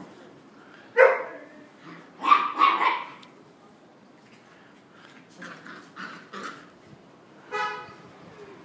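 Puppies, one a Jagdterrier, barking as they play-fight: a loud sharp bark about a second in, a quick run of barks around two and a half seconds, softer barks near six seconds, and a short high yelp near the end.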